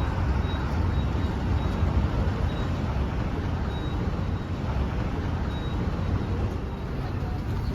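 Steady rumble of road traffic and running vehicle engines.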